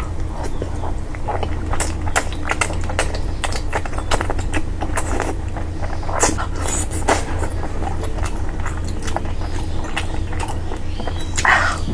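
Close-up eating sounds: a person chewing and smacking on curry, with many short wet clicks and smacks at an uneven pace over a steady low hum. A brief louder mouth sound comes near the end.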